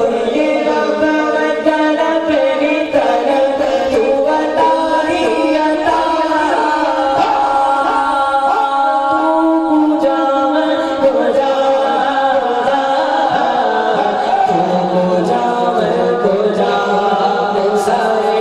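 A cappella devotional vocal music for a naat: layered voices singing and humming long held notes in a slow chant-like melody, with a lower held voice joining about fourteen seconds in.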